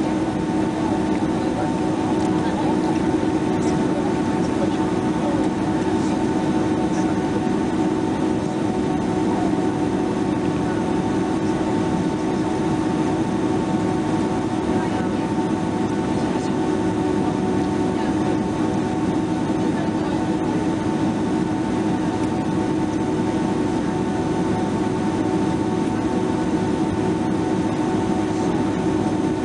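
Steady cabin drone inside a Boeing 767-300ER on the ground with its jet engines at low power, a low hum with a fainter, higher whine over it and no change in level.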